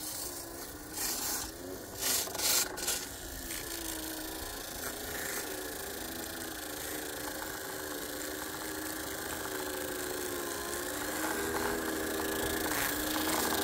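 G-scale track-cleaning cars running on the rails: the rotating brush and grinding pad rub along the track over a small electric motor's wavering hum, with a few louder scraping rasps about one to three seconds in.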